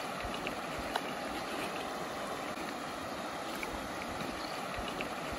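Shallow, rocky stream rushing over stones in riffles: a steady water noise, with a brief click about a second in.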